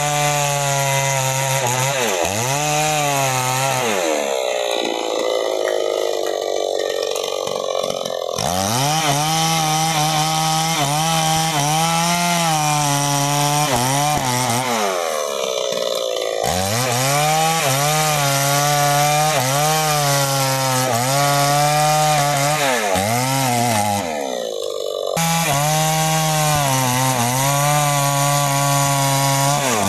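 New West 628 two-stroke chainsaw running at high revs while bucking a sengon log. The engine note dips repeatedly as the chain bites into the wood and climbs again as the load comes off, with a few abrupt jumps in the sound.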